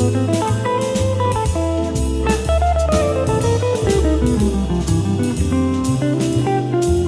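Instrumental background music: guitar over bass, with a drum kit keeping a steady beat.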